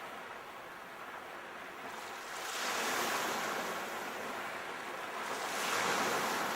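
Sea waves washing in, the surf swelling louder twice: about two and a half seconds in and again near the end.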